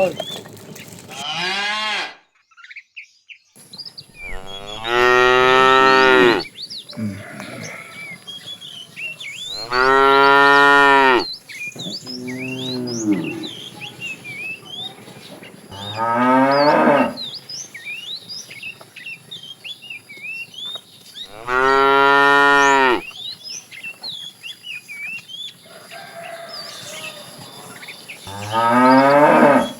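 Cattle mooing: about six long, loud moos a few seconds apart, with small birds chirping between the calls.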